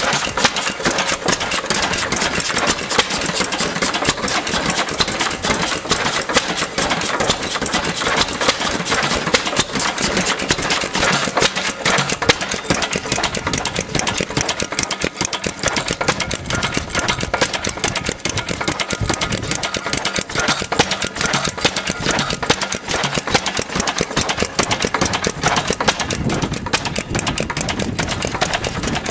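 Vintage Lister single-cylinder stationary engine running steadily, with a rapid, even mechanical clatter.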